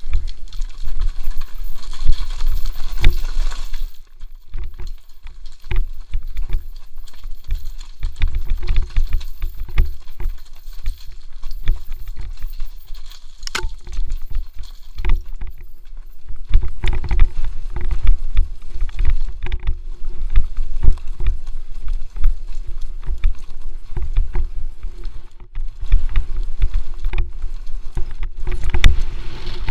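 Mountain bike descending a rough dirt trail, heard from a helmet-mounted camera: continuous rattling and knocking of the bike over roots and rocks, with heavy wind rumble on the microphone.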